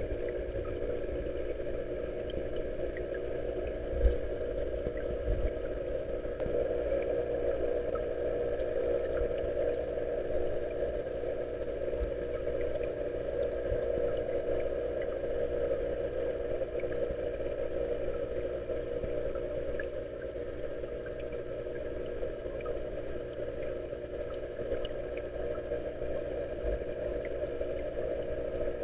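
Steady rush of water from a koi pond's waterfall, with a brief bump about four seconds in.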